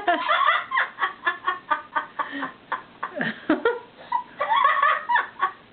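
Yellow-naped amazon parrot mimicking human laughter: a long run of quick laugh-like notes with a few short breaks.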